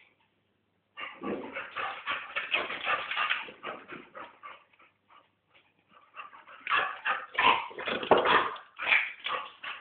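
A Chow Chow puppy whining and yipping in rapid strings of short cries. It starts about a second in and thins out around four seconds, then comes back louder from about six seconds on.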